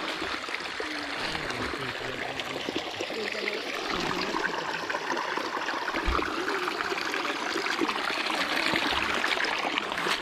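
Stream water running and trickling steadily, with a few soft low thumps.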